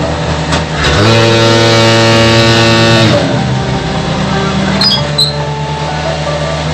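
Concrete hollow block making machine running with a steady hum. For about two seconds its vibration motors buzz loudly as the mix is compacted in the mould, then stop. A couple of short high squeaks come about five seconds in.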